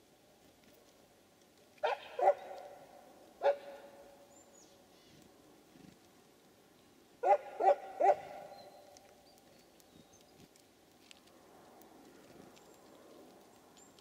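Dog barking: three short barks in the first few seconds, two close together and then one more, followed by three quick barks in a row about halfway through.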